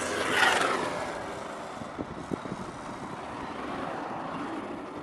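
Roller skates scraping along a pipe in a short grind, falling in pitch as it fades. About two seconds in come two sharp clicks, then a steady low noise.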